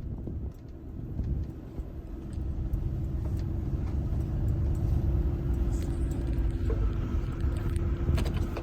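Truck driving on the road: low engine and road rumble with a steady hum, growing louder about two seconds in.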